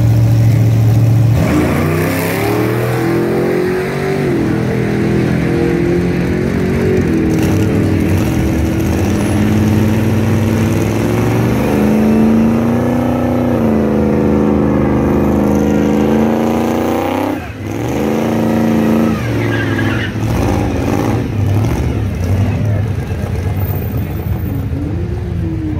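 Drag-racing cars' engines running at the starting line: a steady low rumble, with the revs slowly rising and falling several times.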